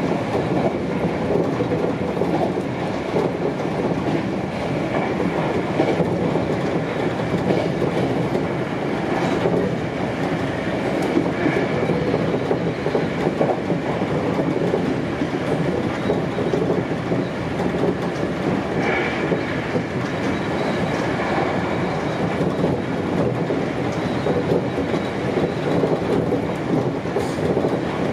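Sanyo 5000-series electric train running steadily at line speed, heard inside the cab: a continuous rolling noise of wheels on rail, with wheels clicking over rail joints.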